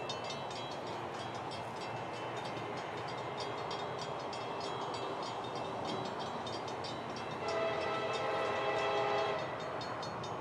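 Air horn of an approaching freight locomotive, sounding one blast of about two seconds, a chord of several tones, about seven seconds in.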